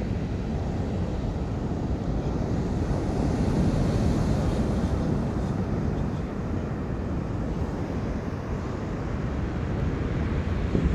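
Sea waves washing onto the shore in a steady surf, one swell rising a little louder about four seconds in, with wind rumbling on the microphone.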